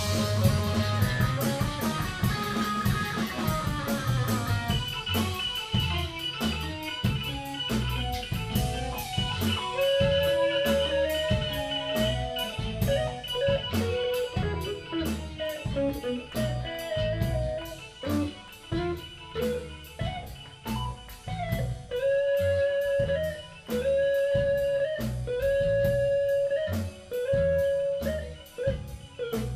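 A rock band playing together live: Ludwig drum kit, electric guitar and keyboards, with quick, busy drumming under held melodic notes.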